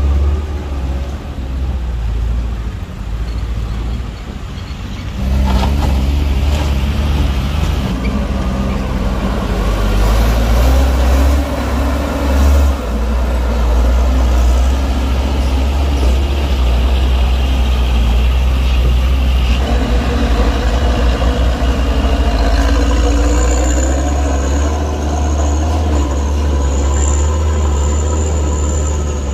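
Heavily loaded palm-oil trucks' engines running hard under load as they climb a muddy, slippery hill, a deep steady rumble that grows louder about five seconds in. A steady high whine joins in for the last several seconds.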